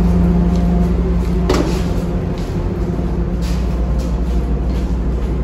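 Steady low drone of a passenger ferry's engines and onboard machinery, with one sharp clack about a second and a half in.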